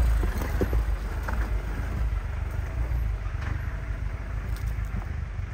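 Low, steady engine rumble of an off-road 4x4 crawling down a rough track in low range, with a few light knocks in the first second or so.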